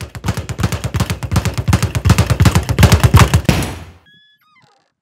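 Speed bag being punched in a fast, steady rattle of about eight to ten hits a second, dying away about four seconds in.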